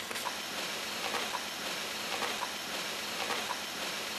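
Steam hissing steadily out of a car's front grille: the radiator has been holed and is venting.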